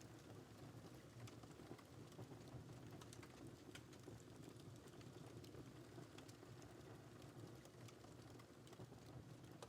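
Wood fire in a fireplace crackling faintly: scattered small pops and snaps over a low, steady rumble.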